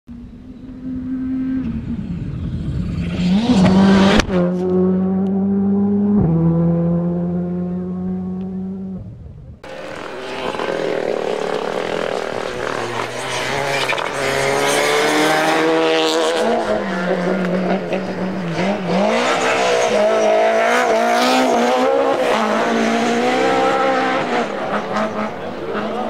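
Rally cars running flat out on a stage. One engine climbs through the revs and shifts up twice in quick succession. After an abrupt cut, another car's engine revs rise and fall again and again, with sharp crackles.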